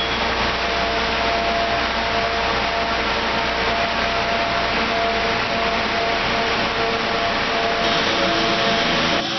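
Water-damage drying equipment running: a centrifugal air mover and a Phoenix 200 MAX dehumidifier, heard as a steady, loud whirring rush with a constant hum-like tone in it.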